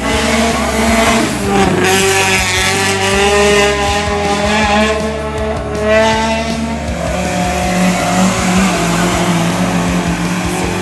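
Hillclimb competition car accelerating hard through a bend, the engine note climbing twice through the gears.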